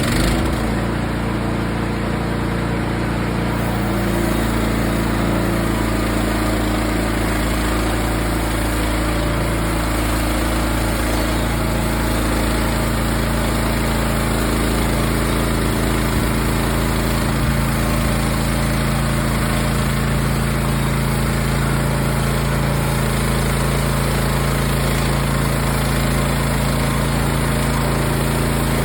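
Small engine of a portable bandsaw sawmill running steadily, its pitch settling over the first few seconds after it starts up.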